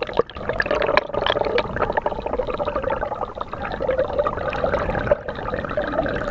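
Water gurgling and bubbling around a submerged camera, a steady dense wash full of small crackles.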